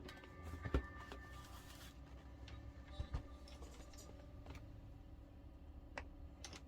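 Laptop and tools being handled: scattered light clicks and knocks, the loudest about three quarters of a second in and another about three seconds in, over a faint low hum.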